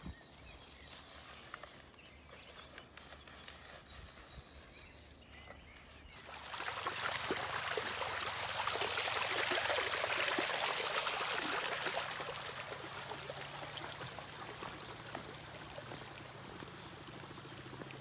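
Water rushing along a small ditch-like channel. It is faint at first, grows loud about six seconds in, and fades after about twelve seconds to a quieter steady flow.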